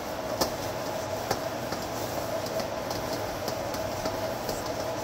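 Steady whirr of an induction cooktop's cooling fan with a faint steady tone, under the soft rubbing of a towel wiping oil around the inside of a wok, with a few light clicks.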